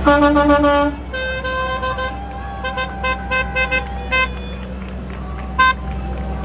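Parade vehicle horns honking: a loud rapid string of toots in the first second, then a longer higher honk and a burst of short toots, with one more short toot near the end. A steady low engine rumble runs underneath.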